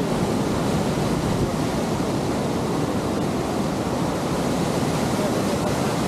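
Steady, even rush of water pouring over the rocky falls and rapids of a river waterfall.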